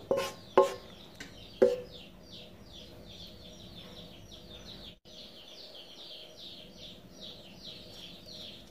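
A wooden spatula knocks against a wok three times in the first two seconds as the stir-fry is scraped out, each knock ringing briefly. After that a bird chirps faintly and steadily, a quick falling chirp about three times a second.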